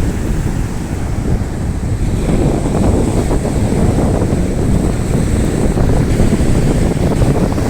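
Strong wind buffeting the microphone over sea surf breaking on the shore, the rumble growing louder about two seconds in.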